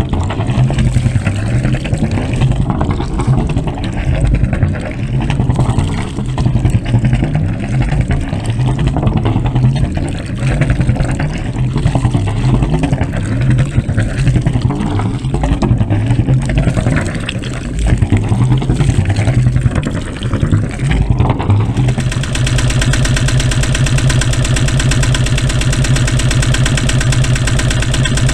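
Yamaha Y26 II EX boat's engine running with its exhaust going. At first the sound is uneven, swelling and dipping every second or so. About two-thirds of the way through it changes abruptly to a steady, even idle.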